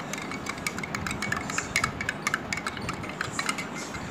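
A spoon stirring a drink in a glass, clinking quickly and irregularly against the glass.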